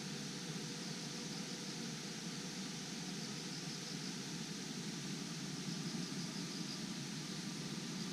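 Steady rushing background noise with faint, rapid high-pitched insect chirping pulsing in and out.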